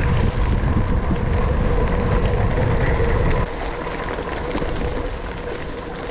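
Wind buffeting a handlebar-mounted camera, mixed with gravel bike tyres crunching and rattling over a dirt and gravel track, plus a faint steady tone. The heavy wind rumble drops sharply about halfway through, and the tyre noise carries on.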